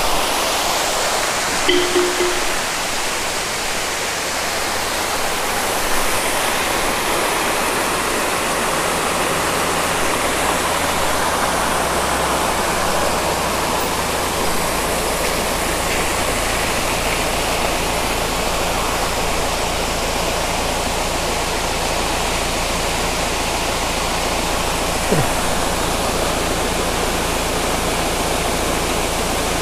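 Small waterfall cascading over rocks into a shallow stream: a steady, even rush of falling water. A faint steady low hum runs underneath from about six seconds in.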